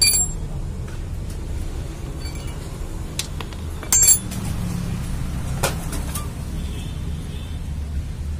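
Metal clinks of a spanner and the engine's oil drain bolt as the bolt is refitted to a TVS XL100 moped's sump: a sharp ringing clink at the start and another about four seconds in, with a few lighter clicks between and after. A low steady rumble runs underneath.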